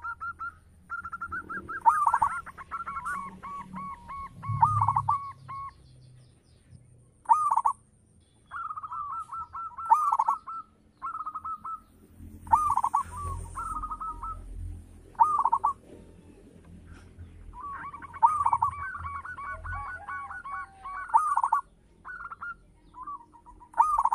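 Zebra dove (perkutut) cooing in repeated phrases, each a loud opening note followed by a quick run of short coos, in a big, full voice. A thin high-pitched tone sounds faintly behind it.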